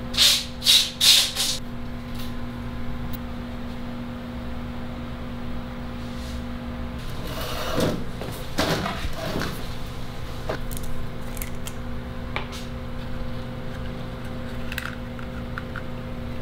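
Small clicks, taps and rustles of hard plastic figure parts being handled and fitted together, over a steady low hum. Three short, sharp, hissing bursts come in the first second and a half, and a longer rustling patch comes about halfway through.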